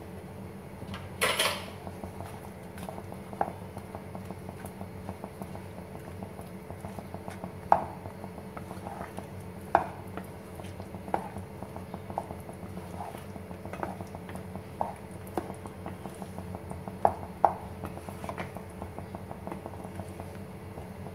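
A wooden spatula stirring thick kadhi with pakoras in a dark frying pan: scattered knocks and clicks against the pan, the loudest a short clatter about a second in. A steady low hum runs underneath.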